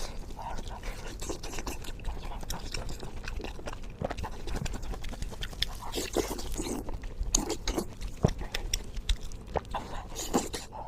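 Close-miked chewing of spicy pork: irregular wet smacks, clicks and soft crunches of eating.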